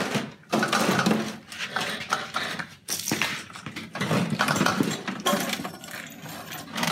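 Snow blower's metal auger housing being worked loose and split from the engine and drive frame: a run of irregular clunks, scrapes and rattles of sheet-metal parts.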